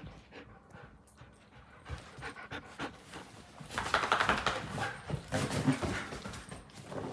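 Dog panting in quick, uneven breaths, faint at first and louder from about halfway through.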